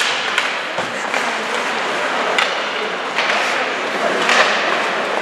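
Ice hockey play in an arena: several sharp clacks of sticks and puck, some against the boards, over a steady din of the rink and spectators' chatter.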